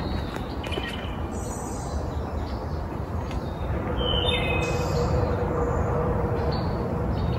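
Steady low rumbling noise on the microphone during an uphill trail hike, with short bird chirps about four seconds in.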